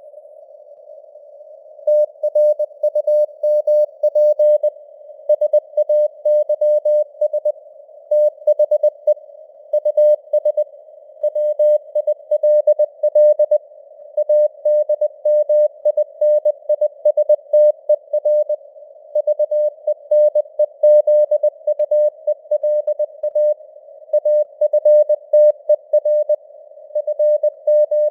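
Morse code (CW) sent at 20 words per minute as a single steady tone keyed on and off in dots and dashes, over a narrow band of simulated radio receiver hiss. The keying starts about two seconds in, after a moment of hiss alone.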